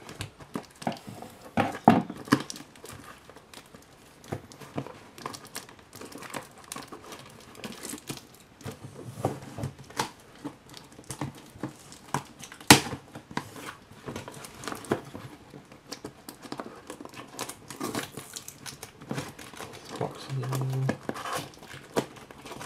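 Scissors cutting through packing tape on a cardboard shipping box, then the cardboard crinkling and tearing as the box is pulled open by hand, with many short clicks and knocks of handling. One sharp knock about halfway through is the loudest sound.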